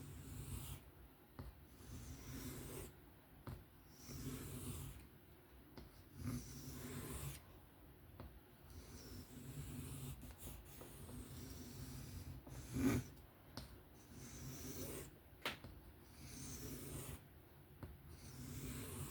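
Knife blade being stroked back and forth across a 600-grit sharpening stone by hand, in a steady rhythm of scraping strokes about one a second, while working to raise a bigger burr along a 154CM steel edge. Two sharper knocks come in the last third.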